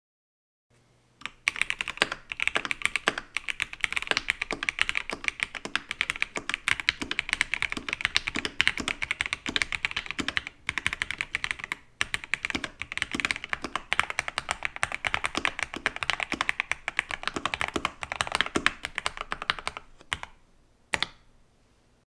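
Typing on a Keychron V1 Max mechanical keyboard with Gateron Jupiter Red linear switches, OEM-profile keycaps and untuned stock stabilizers, in a 3D-printed case with a base pad. A dense, fast run of key clacks starts about a second in, with brief pauses about halfway and a few last keystrokes near the end.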